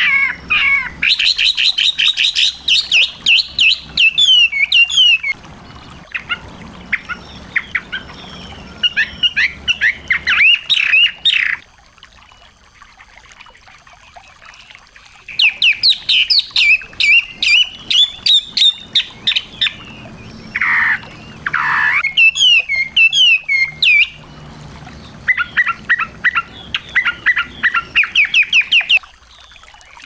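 Small songbird singing in runs of rapid, high chirping notes, four phrases of several seconds each with short pauses between, and two lower falling whistles partway through.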